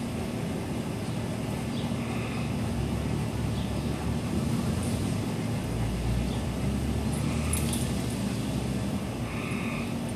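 A steady motor hum, with a deeper rumble swelling from about five and a half to eight seconds in.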